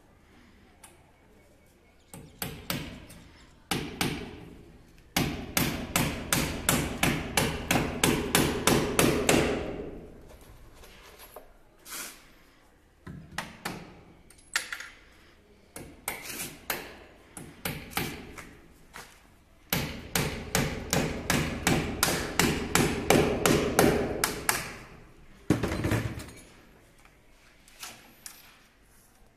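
Hammer driving nails into the wall to fix PVC electrical conduit. It comes in two fast runs of strikes, about four a second, with scattered single taps between them and one heavier blow near the end.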